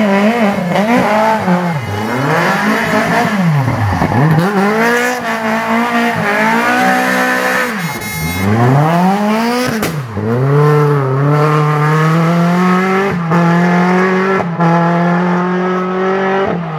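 Lada rally car's engine revving hard through a hairpin, revs rising and falling several times as the driver works the throttle, with the rear tyres spinning. It then accelerates away, revs climbing, with quick upshifts about 13 and 14.5 seconds in.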